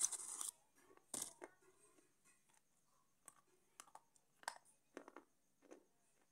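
Slate pencil being bitten and chewed: a loud crunch right at the start and another about a second in, then scattered smaller crunches and clicks.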